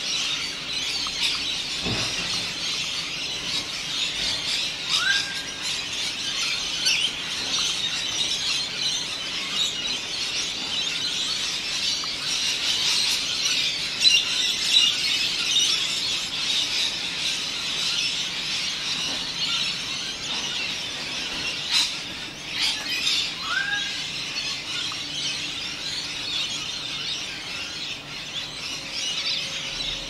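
Dense, continuous chorus of high-pitched bird chatter and squeals, with two short rising whistles about 5 and 23 seconds in.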